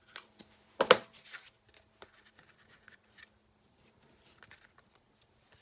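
Plastic case of an ink pad snapping shut: one sharp click about a second in, followed by soft handling noises of card on a craft mat over a faint steady hum.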